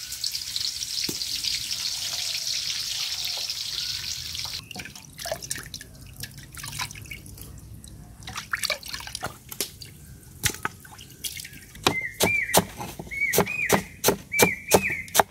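Onions sizzling steadily in hot oil in a wok for about the first four seconds, then wet splashing and dripping as raw chicken pieces are washed by hand in a metal bowl of water. Near the end, a knife chopping fresh coriander on a wooden board, about two sharp strokes a second.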